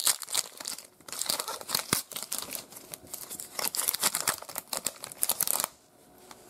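Trading-card pack wrapper being torn open and crinkled in the hands, a dense crackling that stops about a second before the end.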